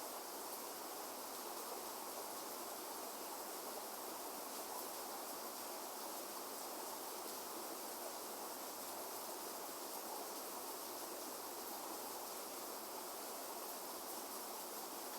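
Steady rain falling, an even hiss with no distinct drops or rumbles standing out.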